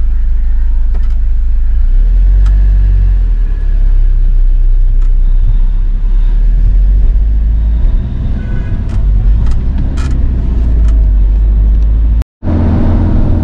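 Motorhome engine and road noise heard from inside the cab while driving, a loud, steady low rumble. It cuts out for a moment near the end, then resumes.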